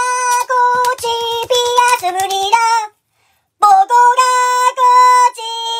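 A high-pitched voice singing a simple melody of short, steady held notes. It breaks off for under a second about three seconds in, then goes on.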